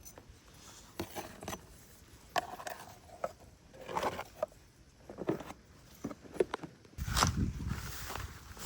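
Irregular scraping and rustling with short taps, growing into louder, denser rustling about seven seconds in.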